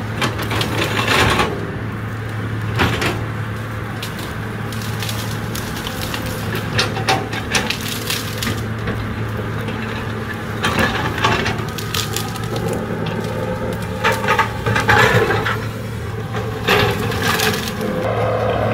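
Excavator's diesel engine running steadily, with repeated cracking and crunching from its bucket and tracks working through wood and earth.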